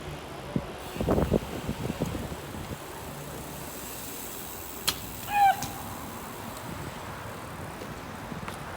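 Outdoor street ambience: a steady rush of wind and traffic noise with a few knocks in the first couple of seconds, a sharp click about halfway, and a short squeak just after it.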